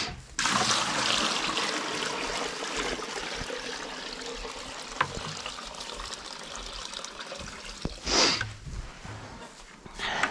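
Water poured from a plastic bucket into rubber livestock pans: a steady splashing rush that slowly tapers off. A goat bleats loudly about eight seconds in, and again briefly near the end.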